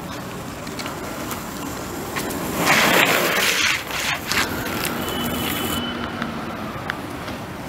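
Longboard wheels rolling over asphalt, with a louder scraping rush about three seconds in as the rider drops low into a slide.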